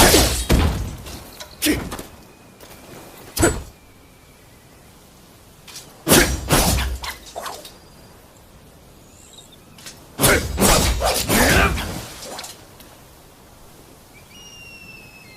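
Oxtail sword combat sound effects: sharp strikes and clashes in short separate hits, then two longer flurries of hits about six and ten seconds in.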